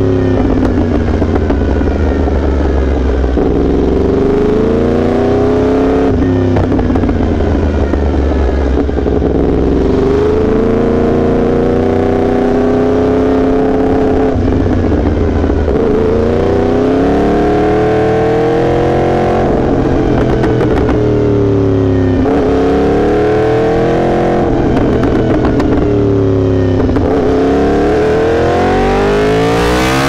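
Yamaha R1's crossplane inline-four engine running on the move. Its pitch climbs and falls again and again every few seconds as the throttle is rolled on and eased off.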